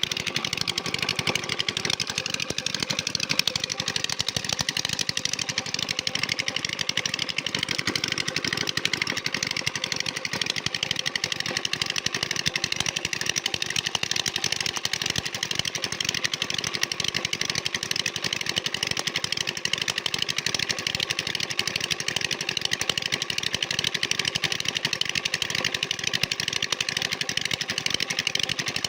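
Small engine running steadily at a constant speed, with a rapid, even firing beat.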